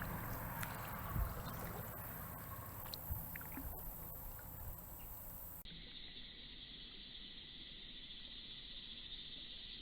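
Water lapping and dripping around a kayak on a river, with a couple of dull knocks, likely a paddle against the hull. About halfway through it cuts abruptly to a steady high-pitched insect chorus.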